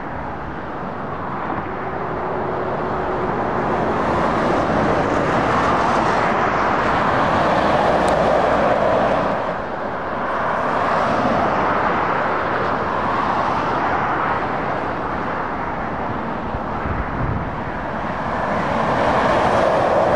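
Motorway traffic going past: lorries, a coach and cars, their tyre and engine noise swelling and fading as each one passes close by. The loudest passes come about eight seconds in and again near the end.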